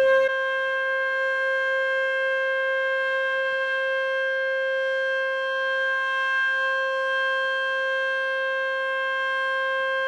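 Electronic outdoor warning siren sounding a steady alert tone, several pitches held together without rising or falling, in a test of a nuclear power station's early warning sirens.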